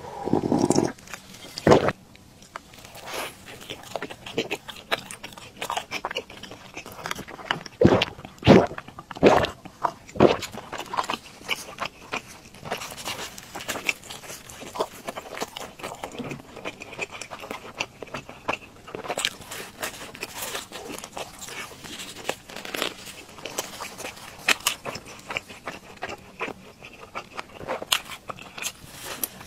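Close-miked eating: a swallow from a bowl in the first second, then repeated crisp bites and crunchy chewing of a fried pastry, many short crackles.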